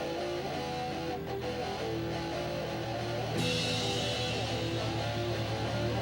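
Guitar-led music score playing a repeating line of notes; a bright hiss joins about three and a half seconds in.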